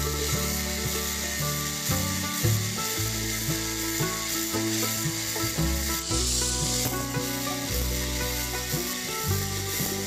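Angle grinder with a cutting disc grinding into the steel shell of a refrigerator compressor to cut the sealed housing open, a continuous rasping hiss. Background music plays under it.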